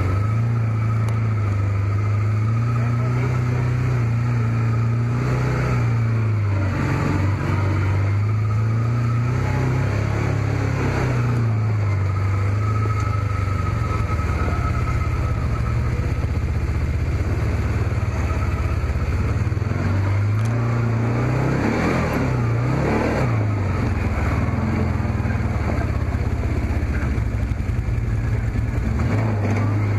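Can-Am Commander side-by-side's Rotax V-twin engine pulling under throttle, its pitch rising and falling as the throttle opens and eases off, with a few quick swoops down and back up.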